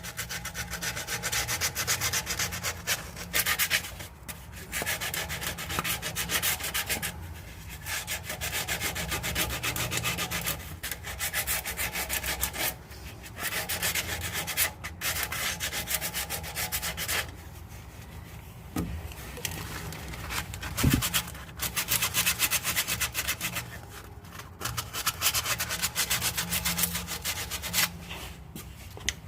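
Sandpaper rubbed by hand over the rusty steel of a car exhaust pipe, taking the rust off before painting. It comes in runs of rapid back-and-forth strokes a few seconds long, broken by short pauses.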